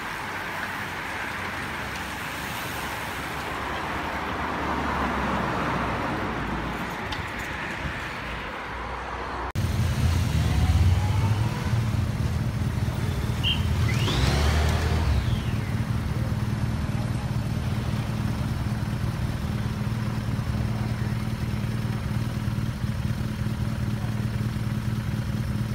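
A bunch of road racing bicycles whirring past on tarmac. Then, suddenly, a motorcycle's engine rides by, its pitch rising and falling as it passes, over a steady low engine hum.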